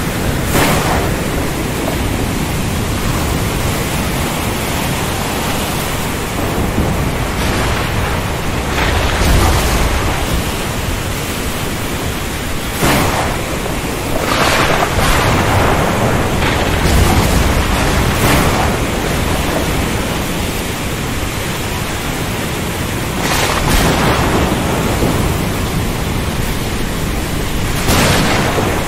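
Thunderstorm over the sea: a steady wash of heavy rain and surf, broken several times by sharp cracks of thunder. Low rumbles swell around a third of the way in and again past halfway.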